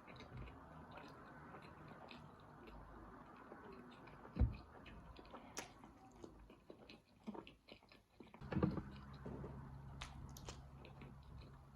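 A person biting and chewing food close to the microphone, with small wet clicks and crunches. A louder knock comes about four seconds in and another about eight and a half seconds in.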